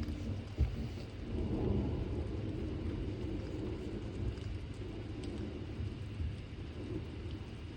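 Low rumble of thunder over steady rain in a severe thunderstorm. It swells about a second and a half in and then holds, with a short thump just over half a second in.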